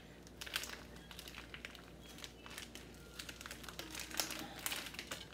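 Plastic bag crinkling in short, irregular crackles as it is twisted and tied closed.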